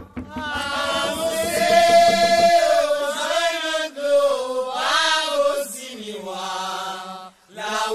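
A single voice chanting a Haitian Vodou song for the lwa in long, drawn-out notes that slide in pitch. A low backing under it stops about two and a half seconds in, leaving the voice alone.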